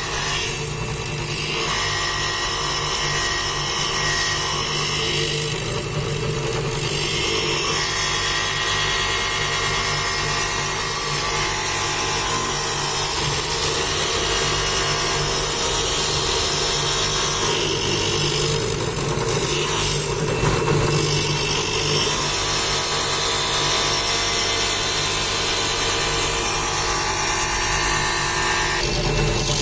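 Optilab optical lens edging machine running, its wheel grinding down the edge of a clamped bifocal lens as the lens turns on its chuck: a steady motor sound with grinding noise.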